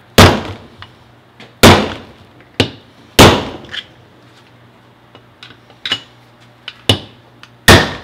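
Hammer striking a screwdriver used as a punch against the steel open-differential carrier of a Toyota Supra, driving out a stuck part. Four heavy metal-on-metal blows at uneven intervals, each ringing briefly, with a few lighter taps between.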